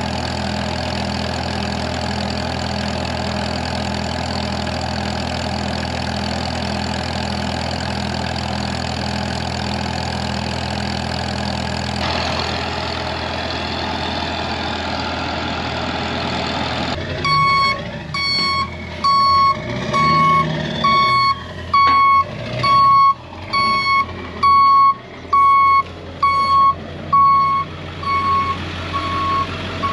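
Farmall M tractor's four-cylinder gasoline engine running steadily while it drives a flood-water pump. About halfway through the sound changes, and for the last dozen seconds an electronic beep repeats about once a second and is the loudest thing heard.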